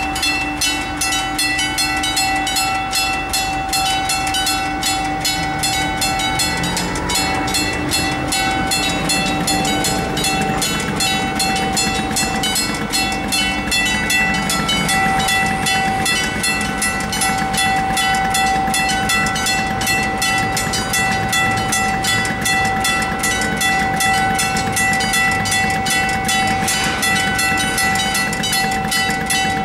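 Italian level crossing's electronic warning bell ringing in a rapid, even beat of ringing tones. The half-barriers are down: a train is approaching.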